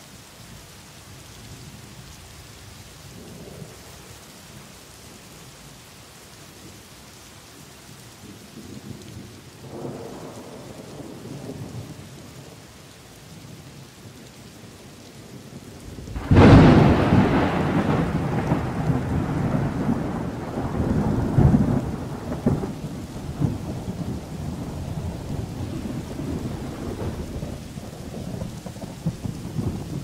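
Steady rain, with faint thunder rumbling twice in the first half. A little past halfway a sudden loud thunderclap breaks and rolls on for about six seconds, then settles to a lower rumble under the rain.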